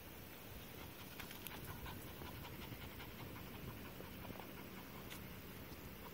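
Pomeranian puppy panting faintly, with a few light clicks.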